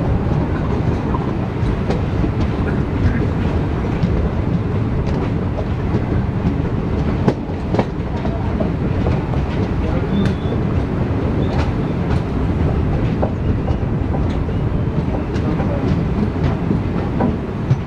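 Passenger train running at speed, heard from an open coach door: a steady loud rumble of wheels on rails, with scattered sharp clicks as the wheels pass over rail joints.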